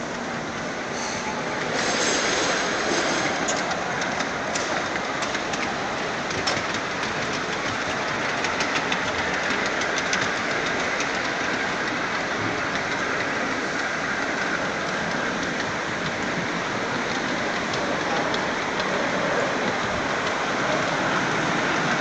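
5-inch-gauge ride-on miniature train rolling along its track, its wheels clicking over the rail joints, with a run of clicks in the first half over a steady hall din.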